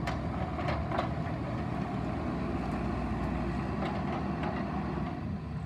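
Bobcat 337 mini excavator's diesel engine running steadily as the machine turns on its tracks, with several sharp metallic clanks, the clearest about a second in.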